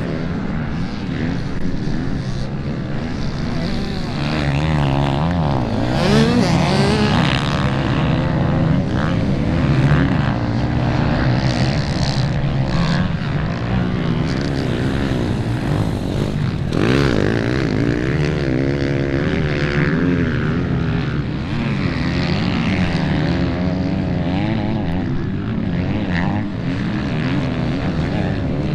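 Several off-road motorcycle engines revving up and down, their overlapping pitches rising and falling without a break.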